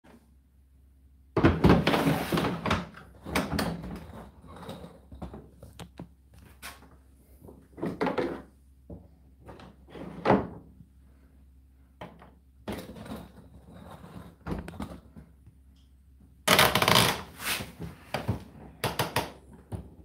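Clunks, clicks and rattles of a condenser tumble dryer being handled: its door opened and shut and its plastic lint filter pulled out and pushed back, with the loudest clatter at about a second and a half in and again near the end.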